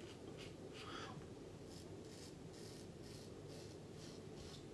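A 1960 Gillette Fatboy double-edge safety razor scraping through lather and stubble on the cheek, in short repeated strokes at about two a second.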